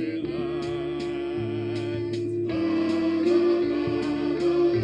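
Band music with a steady drum beat under held, wavering notes; it gets fuller about halfway through.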